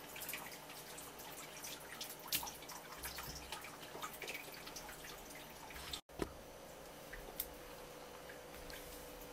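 Water dripping in scattered small drops, with light wet clicks from a freshly rinsed striped jack being handled on a wooden cutting board. About six seconds in the sound cuts off abruptly, leaving a faint steady hum with an occasional tap.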